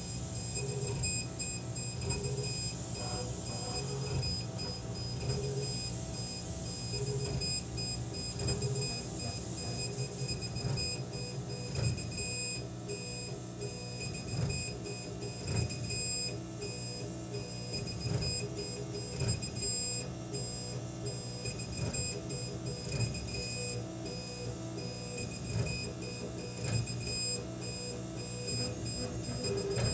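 K40 CO2 laser cutter running a cut: a steady hum with several high steady whines, and the stepper motors buzzing in short spurts that change pitch as the head moves, with occasional clicks.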